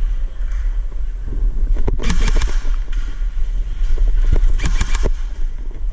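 Steady low rumble of wind and handling noise on a body-worn camera microphone, with a cluster of sharp clicks and knocks about two seconds in and another about four and a half seconds in.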